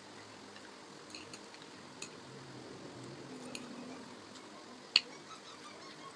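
Quiet eating sounds with utensils against dishes: a few light clicks and one sharp clink about five seconds in.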